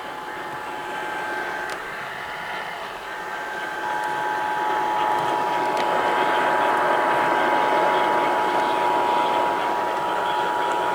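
Emergency Alert System attention signal, the two-tone 853 Hz and 960 Hz alert, heard over radio static; it starts about four seconds in, louder than what comes before. Earlier, a single steady tone fades out about two seconds in under the same hiss.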